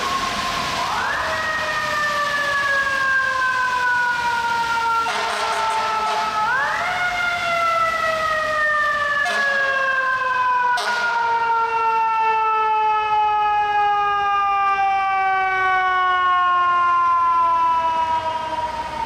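FDNY fire truck siren wailing as the rigs pull out on a call. The tone climbs quickly, then slides slowly down over several seconds. This happens twice, the second fall being long and drawn out.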